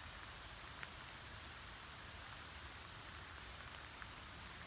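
Light rain: a faint, steady patter with a few sharper drop ticks here and there.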